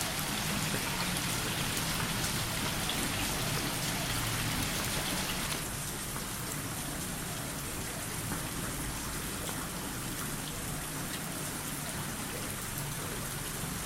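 Steady rain falling, a little softer from about six seconds in.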